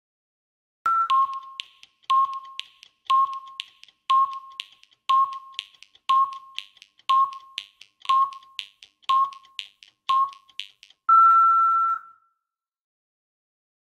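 Film countdown leader sound effect: a short beep every second with faint ticking between the beeps, about ten in all, ending in one longer, slightly higher tone that lasts about a second.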